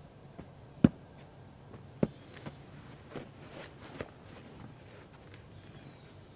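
A person lying down on a groundsheet, body and clothing knocking and rustling against the ground: a sharp thump about a second in, another about two seconds in, then a few softer knocks and rustles. A steady high insect drone runs underneath.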